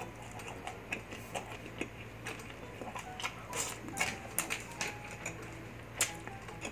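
Close-miked chewing of a mouthful of food, an irregular run of moist clicks and crackles.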